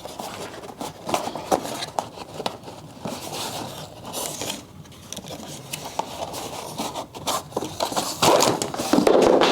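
Handling noise of a foldable tripod being unpacked: irregular scraping, clicking and rustling of the tripod and its packaging, busiest and loudest near the end.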